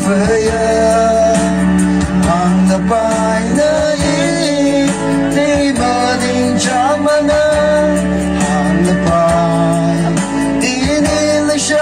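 A man singing a song into a microphone, amplified through a loudspeaker, over instrumental backing music with a steady beat. The voice bends between and holds notes.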